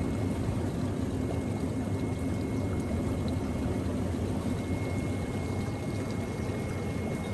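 Steady rush of water pouring and circulating in a live-seafood tank, with a steady low hum underneath.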